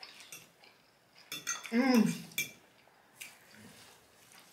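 A metal fork clinking and scraping against a ceramic plate in short separate strikes. A brief vocal sound with a bending pitch about two seconds in is the loudest thing.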